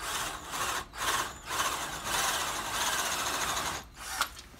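Power drill boring into a wooden board with a standard spade bit. It runs in a few short trigger pulses, then a steady run of about two seconds, and stops near the end.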